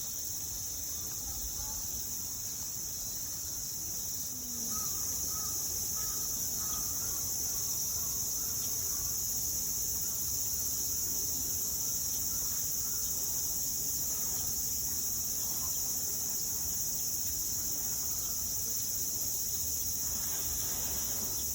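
Steady high-pitched insect chorus, with a few faint crow caws.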